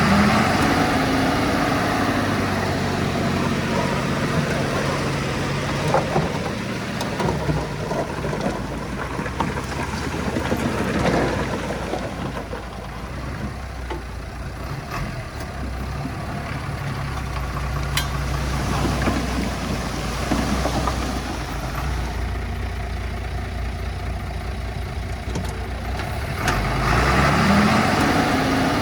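Heavy-equipment diesel engines working: a small Komatsu D20P bulldozer pushing stone and soil, with a dump truck. The engine pitch climbs briefly near the start and again near the end, with clatter in between.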